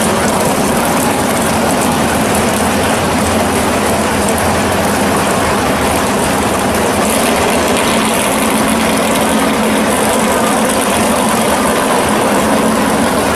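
Two drag cars, a first-generation Chevrolet Camaro and a Chevelle, idling loudly and steadily side by side at the starting line while staging.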